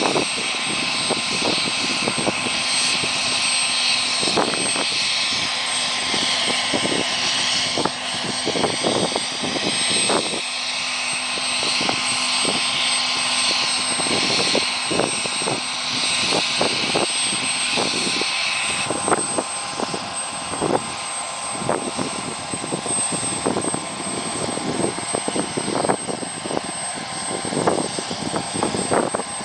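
UH-60 Black Hawk helicopter's twin turboshaft engines running on the ground, a loud steady turbine noise with a high whine that drops back about 19 seconds in, and irregular thumps throughout.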